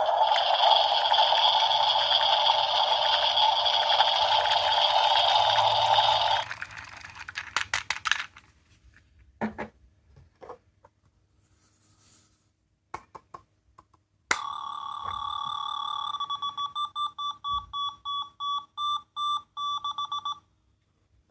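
Small electronic sound-making capsule toys going off. First a loud, harsh buzzing alarm tone lasts about six seconds and stops abruptly. After a few clicks of the plastic toys being handled, an electronic beep tone sounds steadily and then breaks into rapid pulsing beeps, about four or five a second, until it stops.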